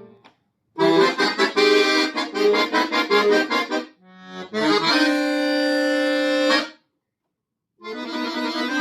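Solo accordion playing a quick, choppy passage of short chords. It then holds a sustained chord that cuts off sharply, and after about a second of silence the playing resumes near the end.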